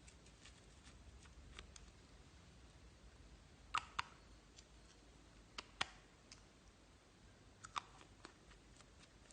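Slime being squished and kneaded by hand, giving scattered sharp clicks and pops as air pockets burst. Several come in quick pairs, the loudest about four and six seconds in.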